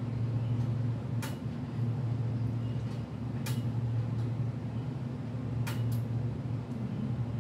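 A steady low mechanical hum, with a few sharp clicks over it (about four, two close together near the end) as a dragon fruit is handled and peeled by hand.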